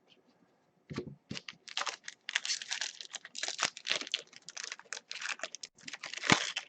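Thin foil wrapper of a hockey card pack being torn open and crinkled by hand. It sounds as a rapid, irregular run of crackles that starts about a second in.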